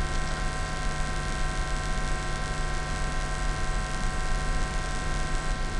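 A steady electrical hum with a low hiss underneath, an unchanging background noise floor with no other sounds.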